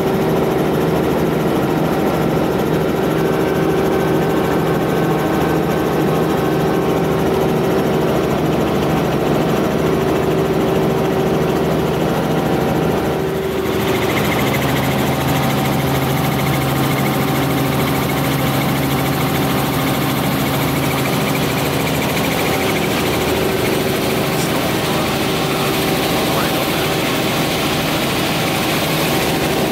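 Helicopter in flight, heard from inside the cabin: a steady drone of engine and rotor with a constant hum. About halfway through, the sound changes abruptly to a hissier drone with a different hum.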